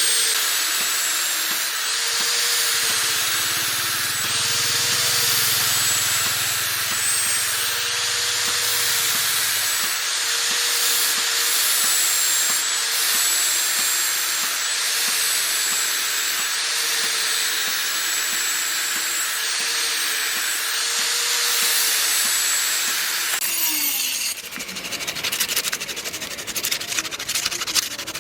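A power tool runs steadily against metal, with a hiss and a faint whine that wavers up and down about every two seconds. About 23 seconds in it stops, and rapid hand rubbing strokes follow.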